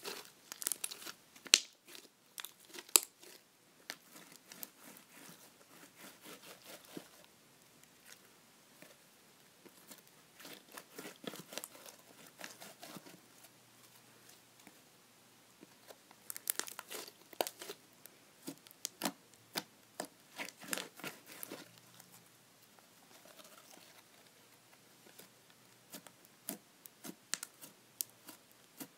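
Butter slime being squished and stretched by hand, giving bursts of sticky crackling and clicking, loudest about the first three seconds, with quieter spells between the bursts.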